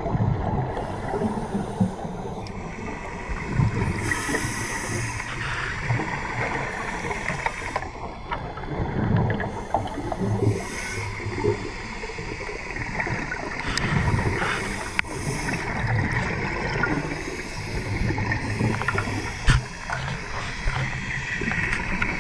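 Underwater sound around scuba divers: a gurgling rush of exhaled bubbles from a regulator recurring every few seconds over a steady low water rumble.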